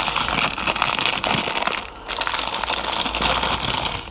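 Plastic packaging crinkling and rustling as it is handled, with a short break about two seconds in.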